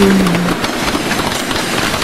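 Train passing at speed: a steady rushing rumble with wheel clatter on the rails. A short held tone sounds at the start and dies away about half a second in.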